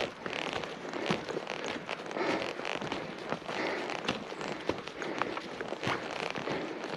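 Footsteps crunching through snow: an unbroken run of crackling with many small sharp cracks.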